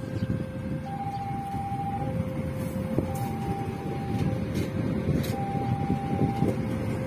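A level-crossing warning signal sounds a two-tone alarm, a higher and a lower tone taking turns about once a second. Under it runs the rumble and clatter of passenger coaches rolling past on the rails.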